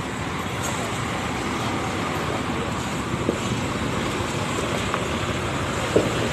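Intercity coach driving slowly into the terminal yard, its engine running steadily, with a few short knocks about three and six seconds in.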